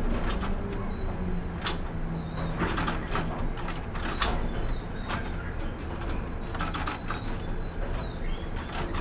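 Container crane machinery running with a steady low hum, broken by repeated sharp clicks and knocks.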